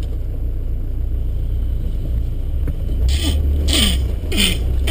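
The 300Tdi four-cylinder turbodiesel of a 1998 Land Rover Discovery 1 running low and steady, heard from inside the cab as it crawls off-road. From about three seconds in come three short scraping swishes, brush rubbing along the bodywork.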